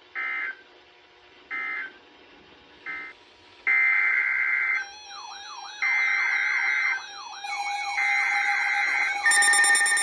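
Several weather radios receiving a Severe Thunderstorm Warning. First come the three short screeching digital data bursts of the SAME alert header, then the radios' alert tones overlapping: a looping warbling siren from about five seconds in, a steady tone, and a harsher multi-tone alarm beeping in near the end.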